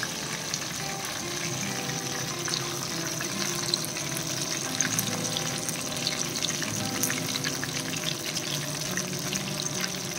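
Whole fish frying in a pan of hot oil: a steady sizzle dotted with many small crackles and pops.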